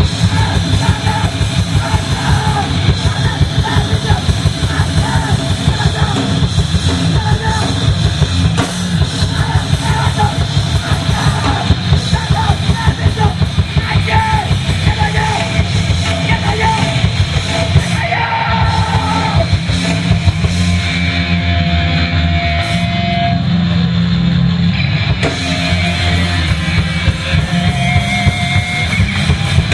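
Hardcore-punk band playing live at full volume: fast drum kit, electric guitars and vocals, recorded from the venue on a minidisc recorder.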